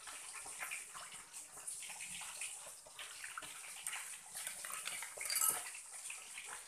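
Metal spoon stirring and scraping in a small ceramic bowl, with light clinks, as sugar is dissolved into fish sauce; a louder clink about five and a half seconds in.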